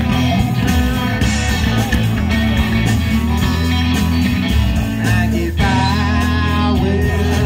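Live rock band playing an instrumental break led by guitar, over bass and a steady drum beat.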